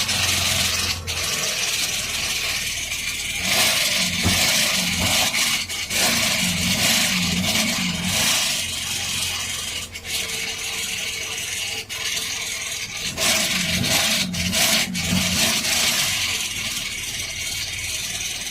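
Irregular rubbing and scraping, varying in strength, with a low hum in some stretches and a few short knocks.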